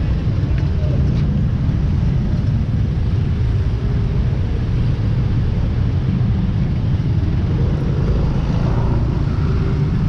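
Steady low rumble of road traffic from cars close by, with faint engine hums over it.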